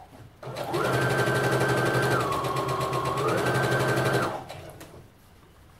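Electric sewing machine stitching ribbon trim onto tulle: it starts about half a second in and runs steadily with a fast, even needle ticking, its pitch dipping for about a second in the middle and rising again, then stops just after four seconds.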